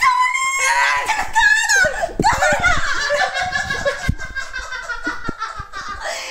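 A woman shrieking and laughing, high-pitched, with a long drawn-out cry from about two seconds in.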